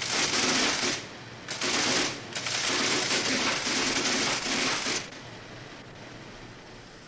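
M.I.T. Braille Emboss braille embosser punching braille into paper: a rapid, dense mechanical clatter in three runs, a short one, a brief pause, then a longer run that stops about five seconds in.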